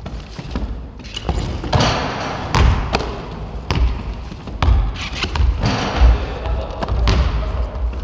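Basketballs thudding and bouncing on a wooden gymnasium floor, a heavy thump about once a second.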